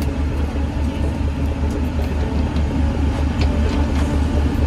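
Charter fishing boat's engine running with a steady low hum, heard from the deck.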